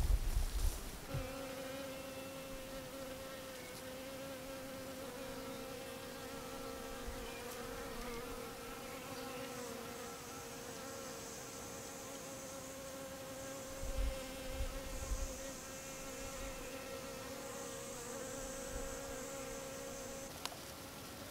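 A flying insect buzzing steadily, a low hum that wavers slightly in pitch and stops shortly before the end. In the second half a faint, high chirring comes and goes in several stretches.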